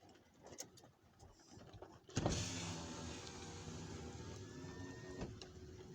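A small electric motor starts with a knock about two seconds in and whines for about three seconds, its pitch rising slightly, then stops with a click. A steady background hiss runs under it and stays after it stops.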